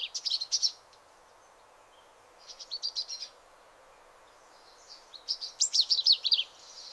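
Small bird chirping in three bouts of quick, high-pitched notes: one at the start, one about two and a half seconds in, and a longer one from about five seconds in, over a faint steady hiss.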